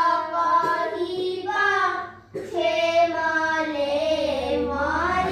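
A child's voice singing a devotional prayer chant in long held notes, with a brief break a little after two seconds.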